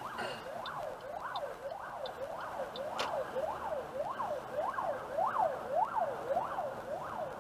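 Emergency-vehicle siren sweeping quickly up and down, just under two rise-and-fall cycles a second, heard from inside a car.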